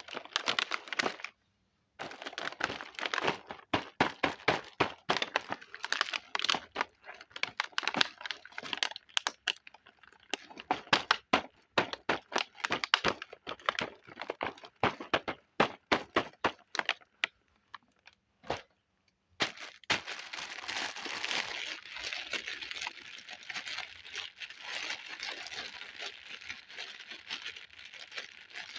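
Plastic packaging crinkling and crackling while a miniature plastic toy kitchen set is unboxed, in quick irregular clicks and crackles. About two-thirds of the way through it turns into denser, continuous crinkling.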